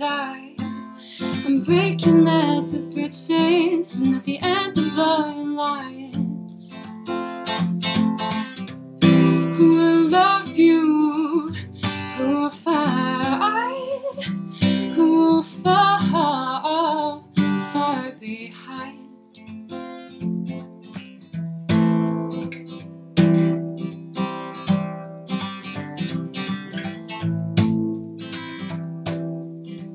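Acoustic guitar strummed under a solo singing voice. The voice stops a little past halfway, and the guitar goes on strumming alone.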